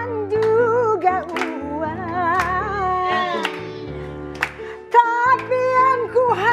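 A woman singing a dangdut melody with heavily ornamented, wavering vibrato, over an instrumental accompaniment of steady low chords. She pauses briefly near the end of the phrase and starts a new one.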